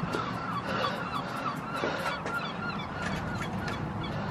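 Birds honking, many short calls repeating over and over, in the manner of geese or other fowl.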